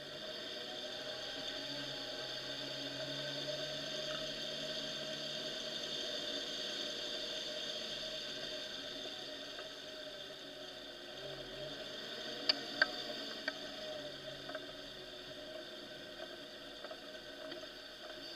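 Off-road vehicle driving slowly along a muddy forest track: a steady engine drone and hiss with small rises in pitch now and then. A few sharp knocks come about two-thirds of the way through.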